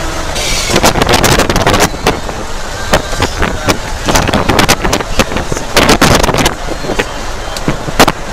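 Moving vehicle heard from on board: a steady low rumble of engine and road noise with wind on the microphone, broken by frequent sharp rattles and knocks.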